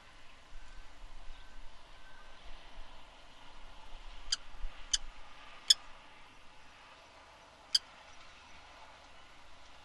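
Four sharp taps, unevenly spaced, over a faint steady hiss.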